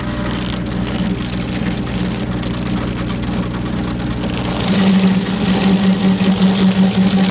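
Stump grinder's engine running steadily, growing louder and hissier about five seconds in.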